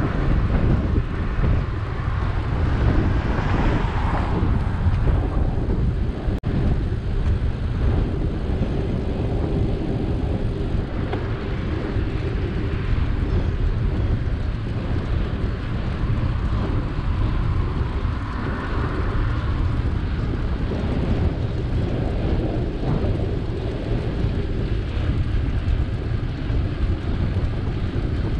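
Steady low rumble of wind buffeting the microphone, with rolling noise from a bicycle ride.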